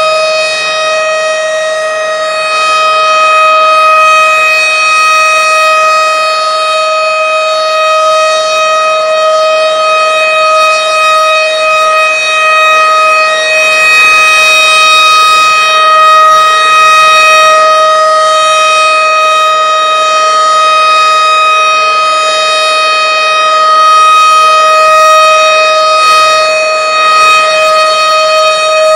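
Several outdoor tornado warning sirens (civil-defense air raid sirens) sounding together, holding a steady high wailing tone with rich overtones. The loudness swells and eases slightly every few seconds.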